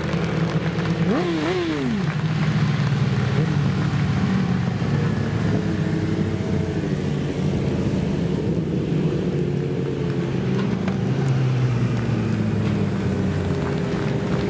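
Several superbike racing motorcycles running steadily at part throttle as they ride slowly past. About a second in, one engine gives a quick rev that rises and falls.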